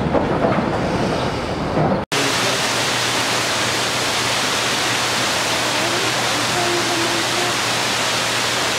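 A carousel running with a low mechanical rumble and clatter. About two seconds in it cuts abruptly to a steady rushing of water, like a waterfall, with a few faint calls over it.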